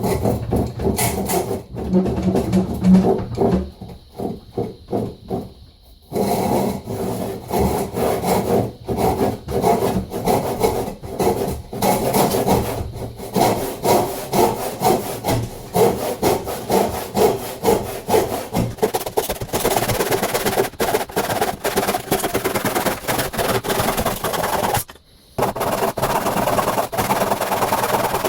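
A freshly sharpened, restored old Warranted Superior hand saw cutting wood in repeated back-and-forth strokes, with a brief pause near the end.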